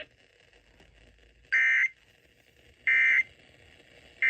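Emergency Alert System end-of-message signal: short bursts of SAME digital data tones, about a second and a half apart, with another starting at the very end. It marks the close of the warning broadcast.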